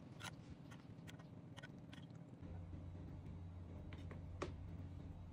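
Faint, scattered clicks of a metal spoon tapping a stainless saucepan and a baking tray as melted butter is scooped and drizzled. A low steady hum comes in about halfway through.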